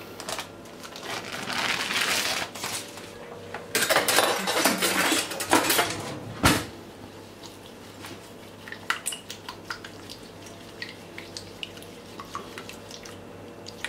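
Kitchen handling sounds: rustling and pressing as a puff-pastry lid is fitted over a pie dish, then one sharp clack of utensils about halfway through. After that come light, scattered clicks of a utensil against a plastic bowl as egg is beaten for an egg wash.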